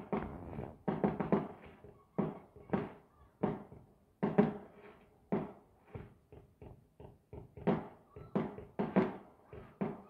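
Fireworks bursting in the sky in a quick, irregular run of bangs, about two a second, each one fading off in a short echo.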